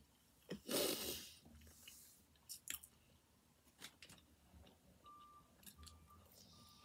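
A person eating Domino's veggie pizza: a bite and chewing, with a louder rustling crunch about a second in and a few small clicks after it.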